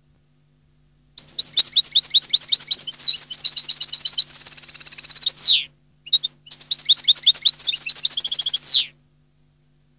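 European goldfinch singing: a fast run of twittering notes starting about a second in, with a trill and a falling note midway, a brief break, then a second phrase that ends in another falling note. A faint steady hum lies underneath.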